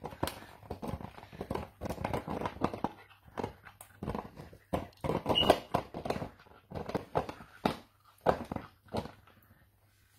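A small dog gnawing and biting on a plastic drink bottle, its teeth on the plastic making irregular crackling clicks and crunches.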